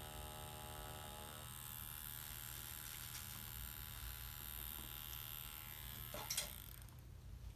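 Electric tattoo machine buzzing steadily. About a second and a half in its lower hum drops away, and near the end there is a short knock before the buzz stops.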